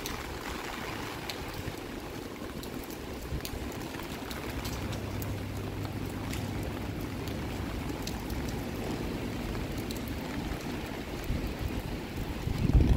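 Steady typhoon wind and rain, with faint scattered drips. Near the end, gusts of wind buffet the microphone with a low rumble.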